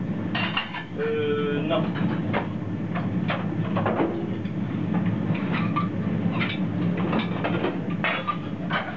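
Restaurant kitchen during service: a steady low hum under repeated clatter of pans, dishes and utensils, with a brief voice about a second in.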